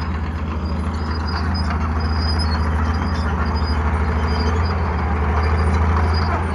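Old Caterpillar crawler bulldozers' diesel engines running steadily with a low, even pulse as they push dirt.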